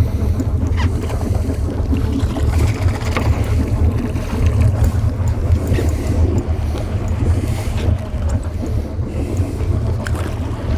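Steady low rumble of wind buffeting the microphone aboard a small boat at sea, over the wash of water against the hull.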